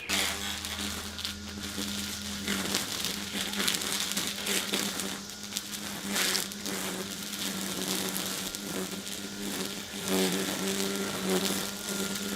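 Greenworks 80V cordless hedge trimmer running with a steady electric buzz, its blades crackling as they cut through hedge branches now and then.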